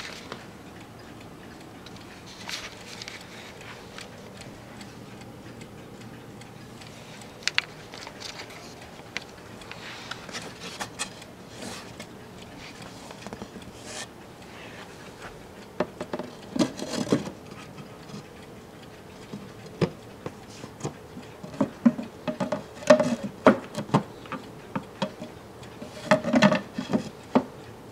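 Mantel clock ticking, with handling noise from hands on its wooden case: scattered clicks, then irregular knocks and rubbing about halfway through and again near the end.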